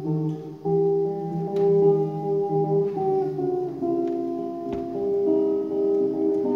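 Amplified guitar played solo: picked notes and chords ringing out with long sustain, the melody moving every half second or so.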